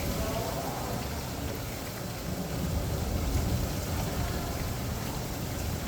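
Rain falling steadily in a thunderstorm, with a low rumble swelling a little past two seconds in.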